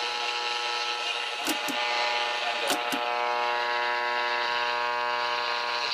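1960s Ford AM pushbutton car radio off-station, its speaker giving a steady electrical buzz with a few sharp clicks in the first three seconds.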